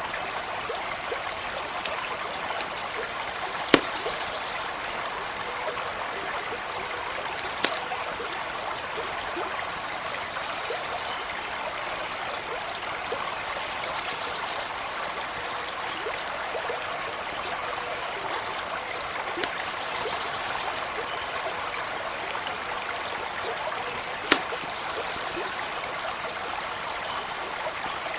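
Small stream running steadily over stones, with three sharp pops from a crackling campfire: near 4 s, near 8 s and around 24 s.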